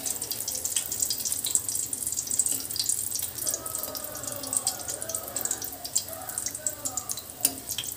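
Battered bread fingers deep-frying in hot oil in a steel kadhai: a steady dense crackle and sizzle of the oil. A steel ladle turning the pieces gives a few light clicks near the end.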